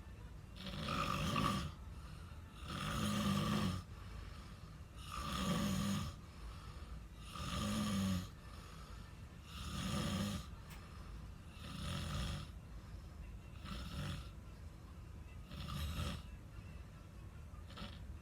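A person snoring in their sleep, about eight snores roughly two seconds apart, growing fainter over the last few seconds.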